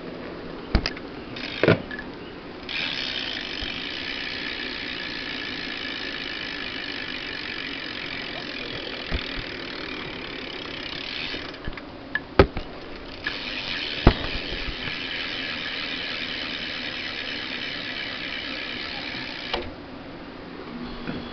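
Stock rear hub of a 2012 Kink Barrier BMX bike freewheeling as the rear wheel is spun: a fast, steady ratcheting buzz of the pawls, heard in two long spins that each stop abruptly. A few sharp knocks from handling the wheel come before and between the spins.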